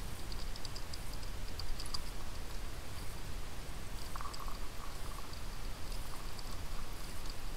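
Motorcycle on a rough dirt road, heard through a camera mounted on the bike: a steady low rumble of engine and wind, with light scattered clicking and rattling and a brief squeak about four seconds in.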